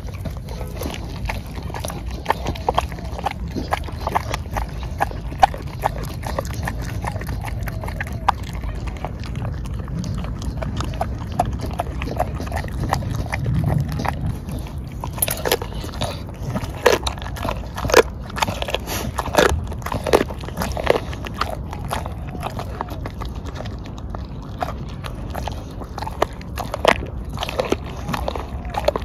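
Dog biting, chewing and tearing at a raw whole chicken carcass, with many sharp crunches that come thickest about halfway through.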